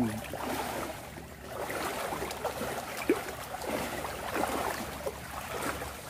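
River water flowing and splashing steadily, with one sharp splash or knock about three seconds in.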